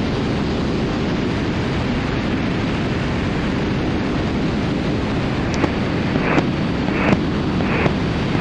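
Steady rushing noise of a twin-engine Cessna T310R in flight, airflow and engine noise without a clear engine tone, with a few faint clicks in the second half.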